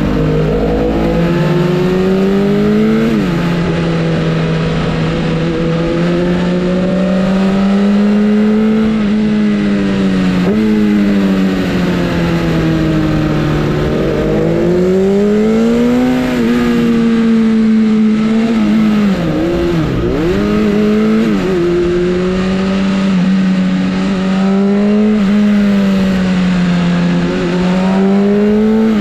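Sportbike engine running hard at sustained revs. Its pitch climbs and drops back every few seconds, with a sudden drop about three seconds in and a deep dip and recovery about twenty seconds in.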